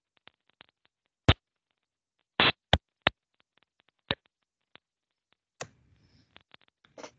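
Irregular sharp clicks and knocks, about a dozen, a few of them loud, heard through a video-call microphone, with the gaps between them cut to dead silence.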